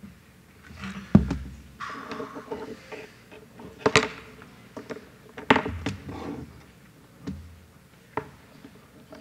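Knocks, clicks and rustling of equipment being handled on a lectern, picked up close by the lectern microphone, with a heavy thump about a second in and sharp knocks near four and five and a half seconds.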